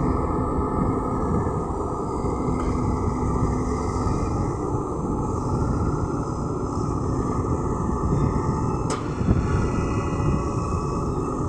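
LiuGong crawler excavator's diesel engine running steadily under load as the machine swings its boom and digs its bucket into soil. A single sharp knock sounds near the end.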